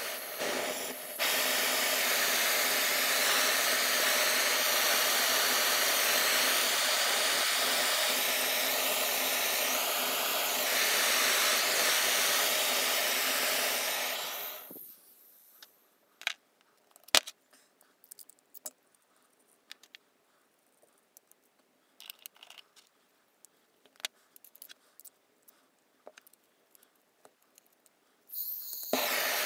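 Homemade gas brazing torch burning with a steady hiss, dipping briefly near the start, then dying away about halfway through as the flame goes out. Near quiet follows, broken by small clicks and handling taps, until the torch's hiss starts again abruptly near the end.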